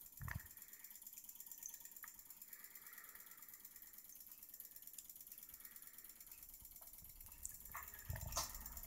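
Homemade model solenoid beam engine running on about 12 volts DC, its solenoid and wheel-actuated switch making a faint, rapid clicking. A few dull thumps come near the end.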